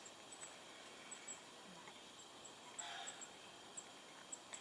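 Near silence: a quiet outdoor background with faint, short, high-pitched chirps scattered through it.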